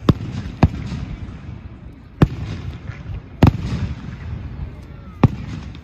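Aerial fireworks going off: five sharp bangs at uneven intervals, with a low rumble carrying on between them.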